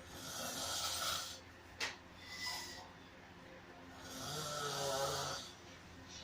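Snoring: two long, rasping breaths about four seconds apart, the second with a low buzz in it, and a brief click between them.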